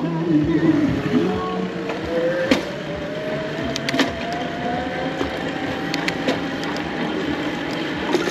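Electric bicycle conversion kit's motor whining, its pitch rising slowly as the bike gathers speed, over steady road and traffic noise. Sharp clicks and knocks from the bike come here and there, the loudest about two and a half and four seconds in.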